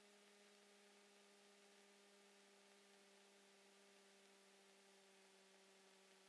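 Near silence: only a faint steady electrical hum.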